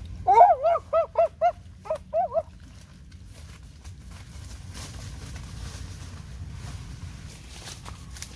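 An animal calling: a quick run of about eight short, high yelps in the first two and a half seconds, then only a faint rustle.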